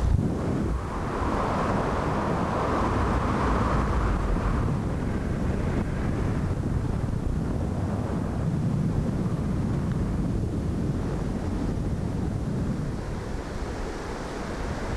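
Wind rushing and buffeting over the microphone of a camera carried by a BASE jumper in descent. A steady, noisy blast with a brighter, higher hiss for a few seconds near the start.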